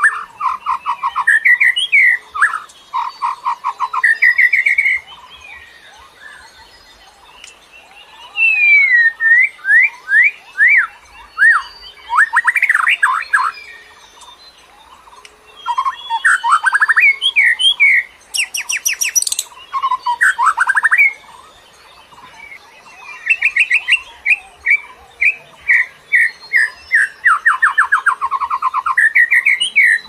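White-rumped shama (murai batu) singing: phrases of rapid repeated notes, trills and sliding whistles a few seconds long, separated by short pauses, with one very high rapid trill about two-thirds of the way through. Wild-forest shama song.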